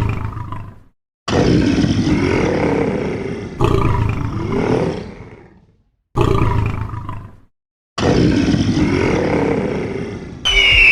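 A lion roaring and growling: a run of deep, gruff roars, about four of them after the tail of a first one, each stopping abruptly with a short silent gap before the next. Near the end a high steady tone begins.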